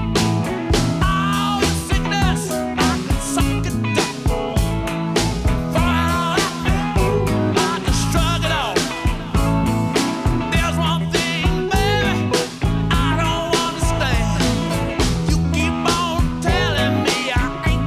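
Rock music with guitar, a steady beat and a singing voice.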